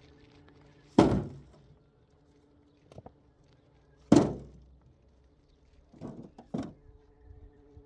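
Two heavy thunks about three seconds apart, each dying away quickly, followed by a few lighter knocks near the end.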